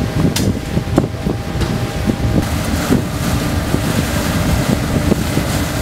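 Wind buffeting the microphone over the steady hum of a naval ship's engines, with water gushing from a discharge outlet in the hull.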